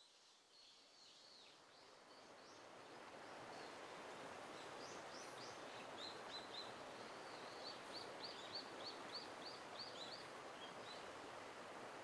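Faint outdoor ambience: small birds calling in short high notes, with a quick run of repeated notes about halfway through, over a steady rushing noise that swells up over the first few seconds.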